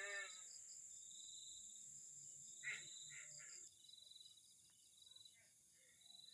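Crickets and other night insects chirping faintly: a steady high trill with a pulsing chirp beneath it, the high trill cutting off suddenly a little past halfway. A short voice-like call sounds at the start and again about three seconds in.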